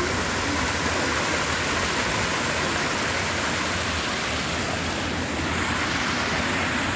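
Small artificial rock waterfall cascading over stones into a shallow pool: a steady rushing splash of falling water.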